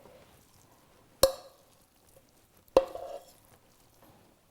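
Two sharp knocks of a utensil against cookware, about a second and a half apart, each ringing briefly, with faint scraping between, as cooked rice is transferred from the pan into an oven dish.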